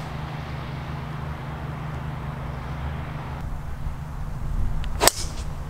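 Golf driver striking a ball off the tee: one sharp crack about five seconds in, over a steady low hum.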